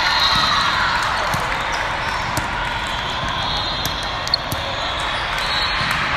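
Volleyballs being struck and bouncing on hard courts, sharp smacks scattered throughout, over a steady din of many voices in a large hall.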